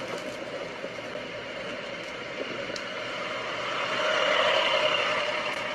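Steady rushing noise of a car driving, swelling louder about four seconds in.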